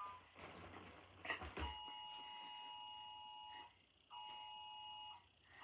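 Emergency Alert System attention signal: a steady two-tone alarm tone that starts about a second and a half in and then sounds in bursts of about a second with short gaps. Faint rustling and a click come just before it.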